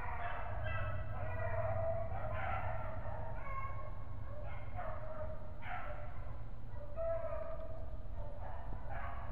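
Rabbit-hunting dogs barking and baying in the brush, about one call a second with some drawn out, typical of a pack giving voice on a rabbit's trail. A steady low rumble runs underneath.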